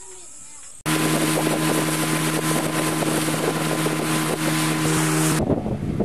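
A steady insect chorus, cut off suddenly under a second in by a boat's motor running at a steady pitch, with wind rushing over the microphone. About five seconds in, the motor's tones drop away and wind and water noise carry on.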